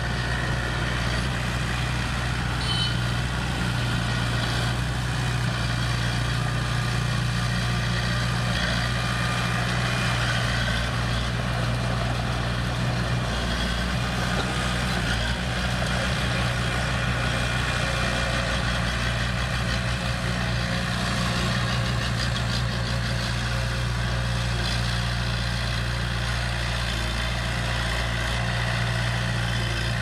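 Komatsu D20A crawler bulldozer's diesel engine running steadily with a constant low hum as the dozer pushes wet soil.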